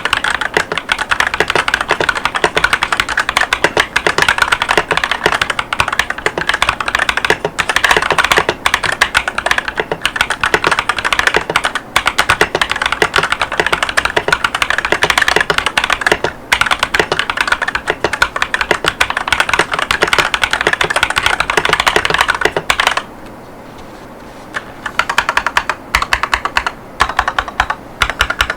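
Akko 5108S mechanical keyboard with Akko Cream Yellow linear switches and PBT OEM-profile keycaps being typed on quickly and steadily. Near the end the typing stops for about two seconds, then resumes with slower, more spaced keystrokes.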